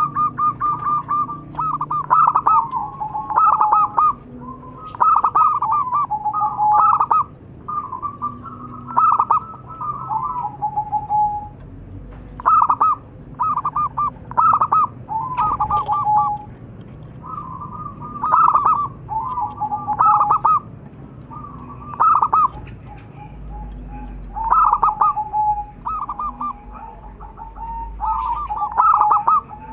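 Zebra dove (perkutut) cooing: repeated phrases of rapid, short staccato notes that often end on a lower, drawn-out note, coming every couple of seconds with brief pauses.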